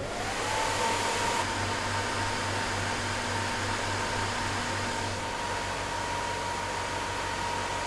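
Fish-fillet scanning machine running: its cooling fans and conveyor belt make a steady rushing noise. A whine rises at the start and then holds one pitch.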